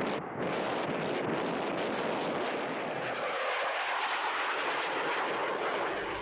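F-15 Eagle twin-engine jet fighter flying past and climbing away: a steady rush of jet noise whose deep part fades about halfway through as the jet draws off.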